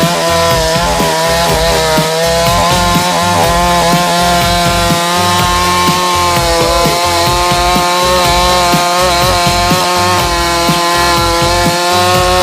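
Chainsaw running at steady high revs under load, cutting through wood.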